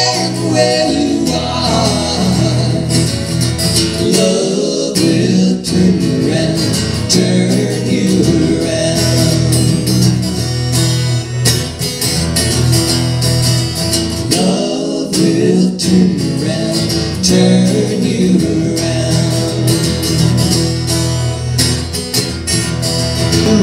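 Live acoustic music: a steel-string acoustic guitar strummed and picked, with a man singing into a microphone at times.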